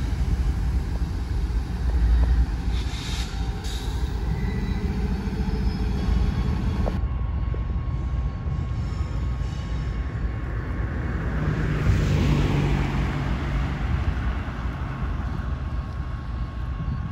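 Freight train with diesel locomotives rolling past: a steady low rumble of engines and wheels on rail, with a short high wheel squeal about three seconds in. About seven seconds in the sound changes abruptly to a steadier rumble with a thin steady high tone, and a car passes near the middle of it.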